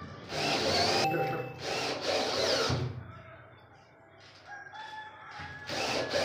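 Cordless drill driving screws into a gypsum-board (drywall) ceiling panel, in several short runs during the first three seconds, a pause, and another run near the end.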